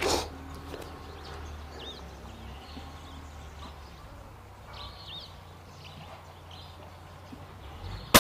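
Quiet outdoor background with a few short bird chirps. Near the end comes one brief, sharp crack: a shot from the .25 calibre Reximex Accura PCP air rifle, whose shrouded barrel has a built-in sound moderator.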